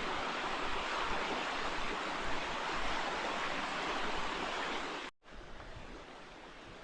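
Steady rushing of flowing river water. About five seconds in it cuts off abruptly and comes back quieter.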